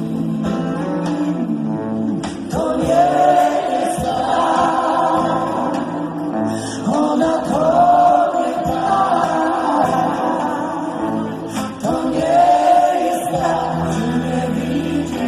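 Live band music with singing: voices hold long, wavering sung notes over sustained low accompaniment.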